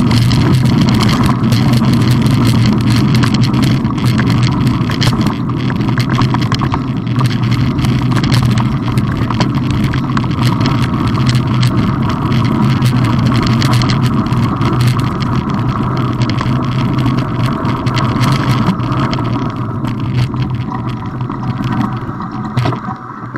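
Mountain bike rolling over a dirt and gravel track, heard close to the bike: a steady loud rumble of tyre and frame vibration, with many small rattles and clicks from loose stones. It dies away near the end as the bike slows.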